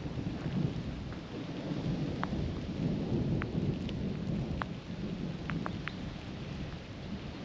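Thunder rumbling low and steady in light rain, with a few sharp single drops ticking now and then.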